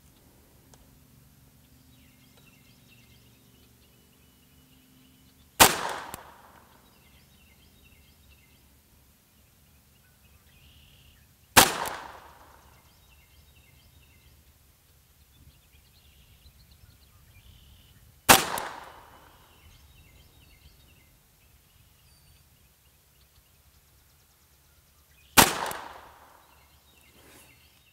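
Ruger 22 Charger .22 LR pistol with a suppressor, firing CCI 40-grain target rounds: four single shots in slow aimed fire, about six to seven seconds apart. Each sharp report is followed by a short echoing tail.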